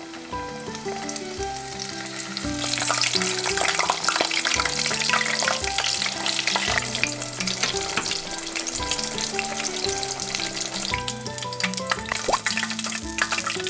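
Breaded cutlets deep-frying in hot oil: a dense sizzle of crackles and pops that grows louder about two and a half seconds in. Background music plays underneath.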